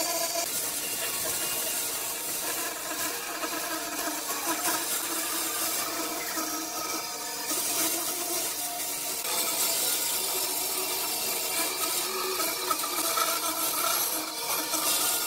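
Bandsaw running and cutting a curve through a thick wooden panel: a steady whine from the saw with the hiss of the blade in the wood, unbroken throughout.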